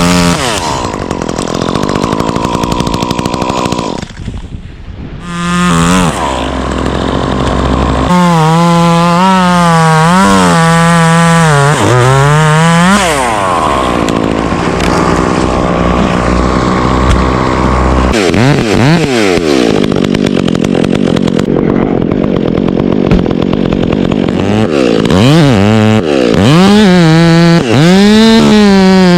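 Stihl gas chainsaw running hard, its engine speed repeatedly rising and sagging as it cuts. About four seconds in it drops briefly to a low idle, then revs back up.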